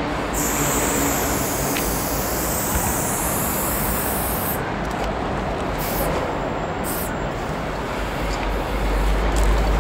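Aerosol spray-paint can hissing in one long spray of about four seconds, then two short bursts, over a steady background rumble.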